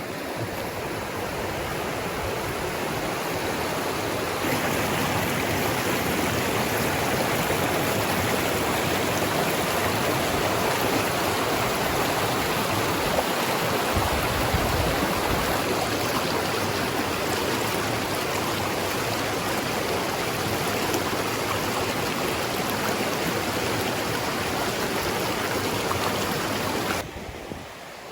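Rushing water of a forest stream running over small cascades, a steady rush that grows louder over the first few seconds and drops off suddenly near the end.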